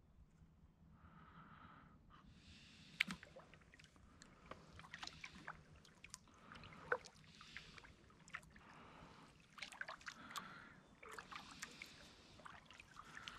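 Faint kayak paddling on still water: soft swishes of the blade recurring every second or two, with drips and light ticks between strokes.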